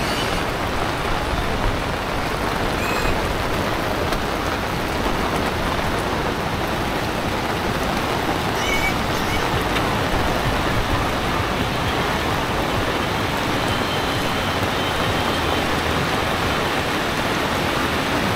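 Torrential rain falling steadily: a dense, even hiss of rain on surfaces.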